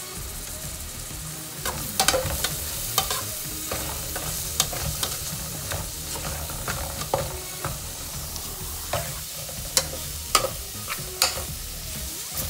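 Chopped onions and spices sizzling as they fry in a metal pot, stirred with a metal slotted spoon that scrapes and clinks against the pot. The clinks are irregular and start about two seconds in.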